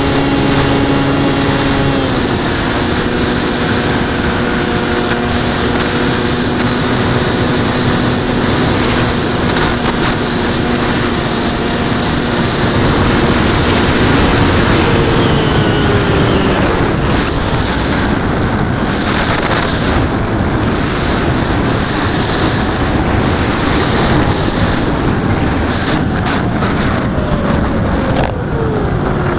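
Electric RC plane's NTM 4248 650kv brushless motor swinging an 11x8 propeller, heard from a camera on the airframe, with a steady rush of air over it. The motor's hum steps down about two seconds in, then slides lower around the middle as the throttle comes back, leaving mostly wind and a fainter tone that drops further near the end as the plane descends.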